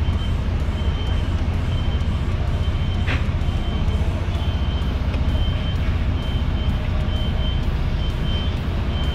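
Rigid HGV's diesel engine running with a steady low rumble, while a reversing alarm beeps a little more than once a second. There is a short hiss about three seconds in.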